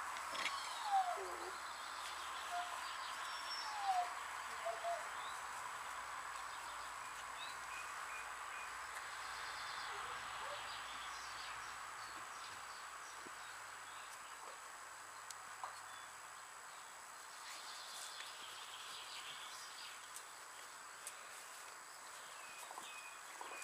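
Quiet outdoor garden background with a few short, falling calls in the first five seconds and faint, scattered bird chirps.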